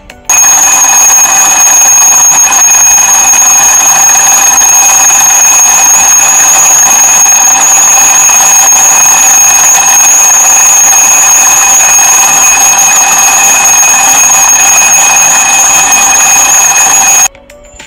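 Twin-bell mechanical alarm clocks ringing loudly and without a break, a dense metallic bell clatter that cuts off suddenly near the end.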